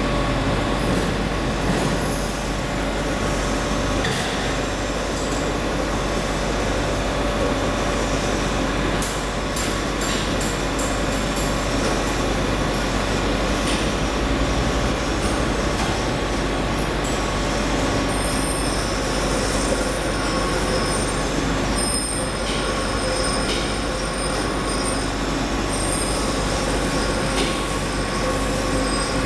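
Steady workshop machinery noise: a constant hum with a few held tones and a high whine that comes and goes, with faint ticks here and there.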